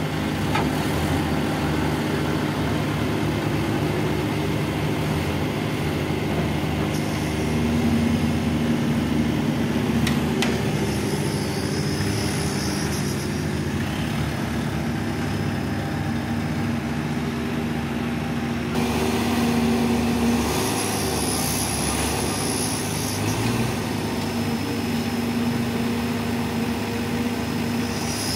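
Diesel engine of a JCB telescopic handler running steadily, its note rising and strengthening for a few seconds at a time, several times over, as the machine works its boom and concrete skip.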